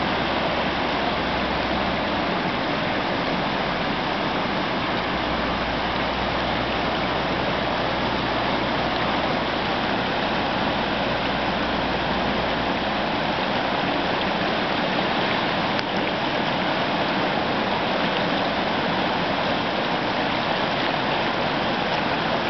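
Floodwater of a swollen beck rushing steadily. A low hum underneath stops about halfway through.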